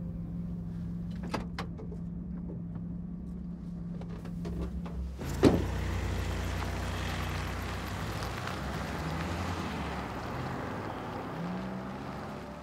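Volkswagen Transporter van: a low steady engine hum with a few clicks, then a sharp thump about five seconds in. The van then drives off, its engine and tyre noise slowly fading.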